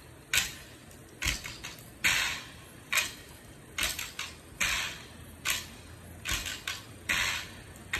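Donkey jawbone (quijada) played alone as a percussion instrument: a steady pulse of short, dry rattling strokes a little under one a second, some of them doubled.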